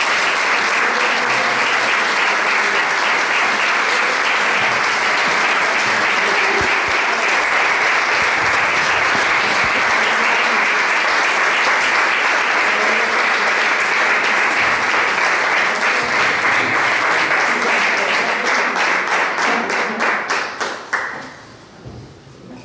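An audience clapping: steady applause that thins into scattered single claps and stops about twenty-one seconds in.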